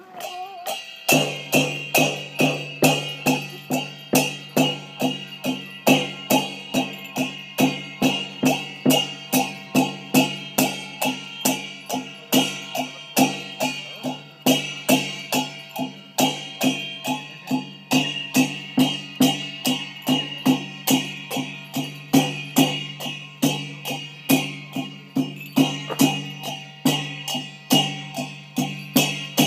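Achi Lhamo accompaniment of a handheld drum and cymbals beating a steady rhythm of about two strokes a second, the cymbals ringing on between strokes. The beat comes in about a second in and keeps an even pace.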